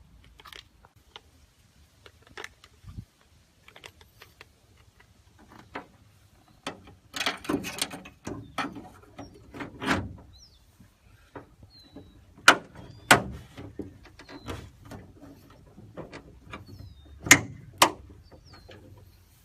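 Irregular clicks and knocks of hand tools and hardware while the nuts are fitted to the carbon fiber hood vent on the underside of the hood, with a few sharp, louder knocks.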